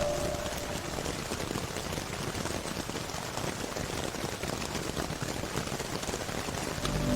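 Rain sound effect: a steady patter of rain falling on a surface, heard alone after the slowed, reverberant ambient music fades out in the first half second. The music's low notes start to come back near the end.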